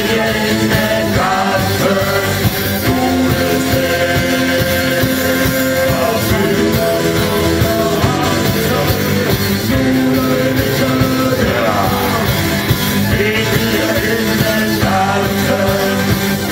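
Live rock band playing loudly and without a break, with a sung lead line held in long notes over it.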